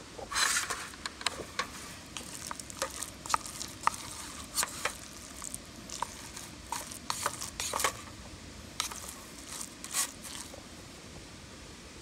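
A spoon stirring and fluffing freshly cooked rice in a metal camping pot, with short, irregular scrapes and taps against the pot.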